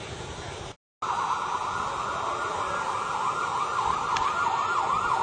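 A siren sounding in a fast, repeating up-and-down yelp. It cuts in suddenly after a brief gap about a second in.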